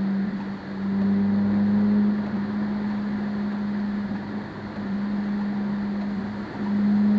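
A car driving on a rain-soaked road, heard from inside: steady hiss of tyres on wet pavement under a constant low hum that briefly drops out every couple of seconds.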